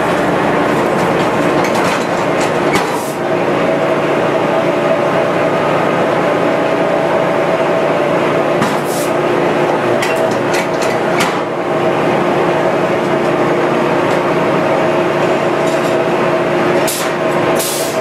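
Sawmill machinery running loudly and steadily with a constant hum, broken by sharp knocks and clanks a few times as a log is handled on the carriage by the hydraulic log turner.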